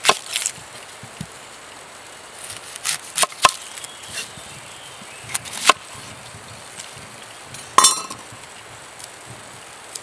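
A few scattered sharp knocks and clinks of cooking utensils, in small groups, the loudest a ringing clink about eight seconds in.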